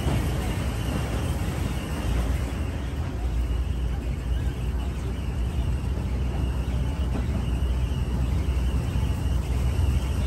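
Open-air tourist rail cart running along the track, its engine and wheels on the rails making a steady low running noise.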